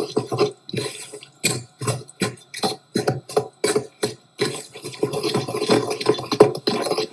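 Wooden spoon stirring dry seasoned flour and cornflour in a stainless steel bowl: quick, uneven scraping strokes, about three a second.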